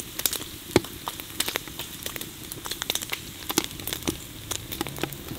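Diced lamb fat frying in a cast-iron kazan as it renders down to oil, sizzling with irregular sharp pops and crackles.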